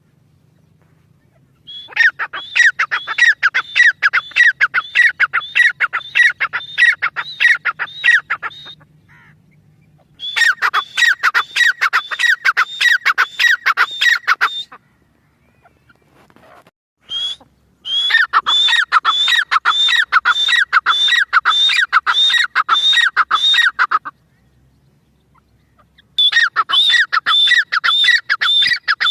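Partridge ('Irani teetar') calling in long runs of rapid, repeated harsh notes, a few per second. There are four runs, with short pauses between them.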